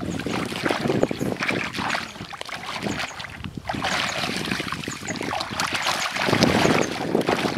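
Pond water splashing and sloshing irregularly as a man wades and works his arms through it.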